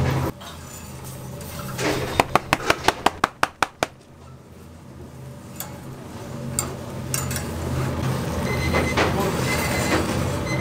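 A quick run of about ten sharp clicks or taps, fading as they go, over a steady low hum.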